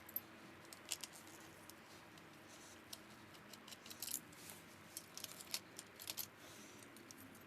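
Faint, scattered clicks and light clinks of small metal and plastic VCR parts being handled while the machine is taken apart by hand, with a small cluster of clicks a little after four seconds and another around five to six seconds in.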